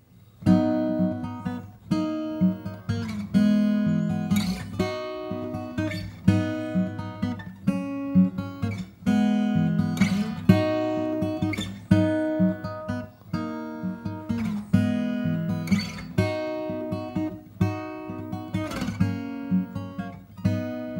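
Solo acoustic guitar playing an instrumental intro: chords plucked and strummed one after another, each left ringing. It starts about half a second in, after a moment of near silence.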